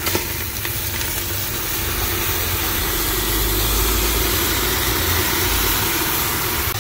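Octopus sizzling as it fries in hot olive oil with onions and garlic in a pressure cooker: a steady frying hiss with a low rumble underneath.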